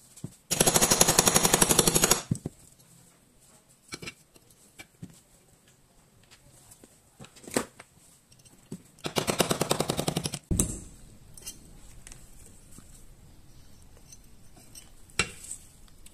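Two bursts of rapid, even clicking, each about a second and a half long, one just after the start and one past the middle, with scattered small metal clicks from pistol slide parts being handled between them.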